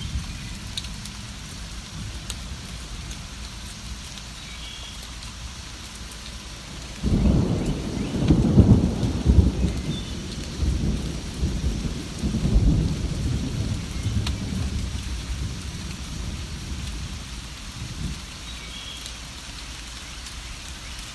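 Steady rain falling, with a roll of thunder breaking in suddenly about seven seconds in and rumbling for several seconds before dying back into the rain. A few faint bird chirps are heard now and then.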